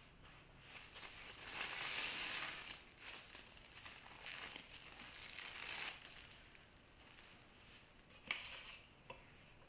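Plastic cling film crinkling as it is peeled off a sheet of rolled-out chocolate tart dough, in a few rustling stretches over the first six seconds. A single light tap follows near the end.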